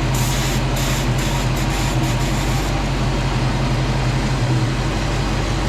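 A 1989 Ford Mustang's 5.0 V8 idles steadily with the A/C compressor engaged on a freshly charged R134a system. A broken hiss runs through the first two to three seconds.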